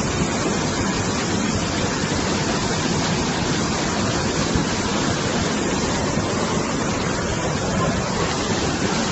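Muddy floodwater rushing through a swollen river, a dense, steady rush of turbulent water.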